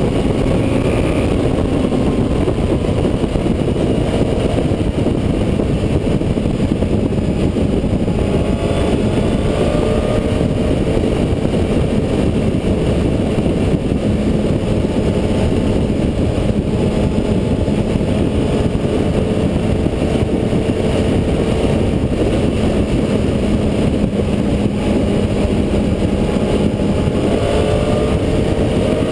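Honda CBR954RR's inline-four engine running at road speed, under heavy wind rush on the bike-mounted microphone. The engine pitch sags slowly through the middle and rises again near the end.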